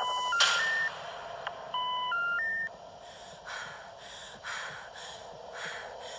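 A rising three-note electronic beep sequence sounded twice over a steady hiss, followed by a run of short breathy puffs, about two a second.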